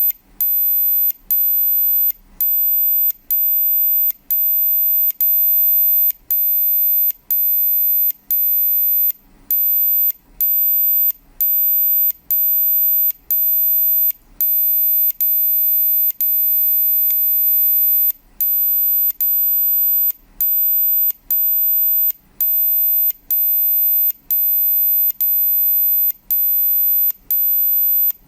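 High-pitched time-code tone for setting a radio-controlled clock. It switches on and off about once a second with pulses of varying length, a pulse-coded signal that a radio-controlled clock reads to set its time. Each switch gives a click.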